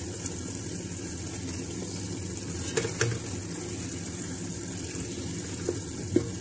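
Tomato and onion masala sizzling steadily in a large aluminium pot while a slotted spoon mashes and stirs the softened tomatoes, with a few light knocks about three seconds in.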